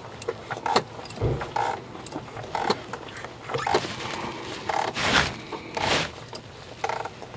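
A wrench tightening the oil filter housing cap on a 2013 Chevy Trax's 1.4 L engine, just to snug: irregular tool clicks and scrapes, about one a second.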